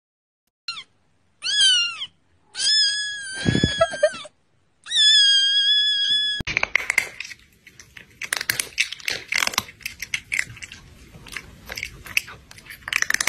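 A kitten meowing four times, the first two calls short and the last two long and drawn out. From about six seconds in, crunchy chewing with quick crackling bites.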